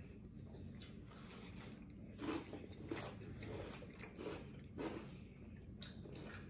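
Chewing and wet mouth sounds of someone eating, with a few soft smacks at irregular moments over a steady low hum.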